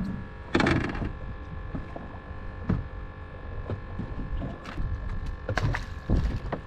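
A boat's motor humming steadily, with a few short bursts of noise over it.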